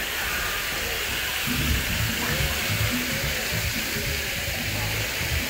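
Steady rush of water at a water park, with music from loudspeakers coming in under it about one and a half seconds in.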